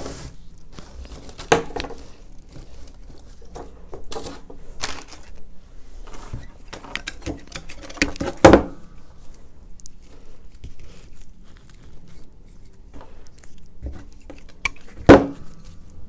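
Hand work on a fir table arrangement: scattered rustling of fir greenery and small taps, broken by a few sharp clicks and snips from pruning shears cutting an ornament's stick. The loudest snips come about eight and a half seconds in and again about a second before the end.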